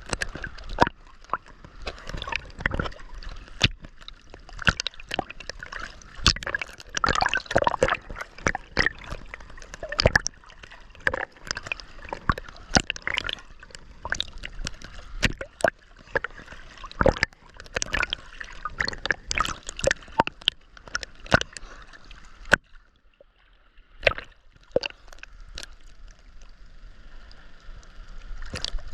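Ocean water splashing and sloshing close by, a dense irregular run of sharp splashes over a steady wash, dropping briefly quieter a little after two-thirds of the way through.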